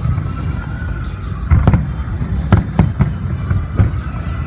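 Fireworks exploding: a series of sharp bangs, about half a dozen from a second and a half in, over a continuous low rumble.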